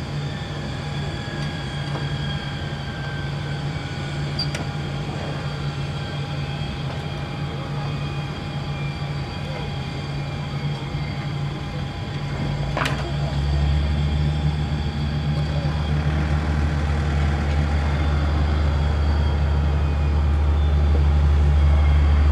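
Saab 340B turboprop winding down after engine shutdown: a thin turbine whine falls in pitch over the first few seconds over a steady low mechanical drone. After a sharp click about halfway through, a deeper hum comes in and grows louder.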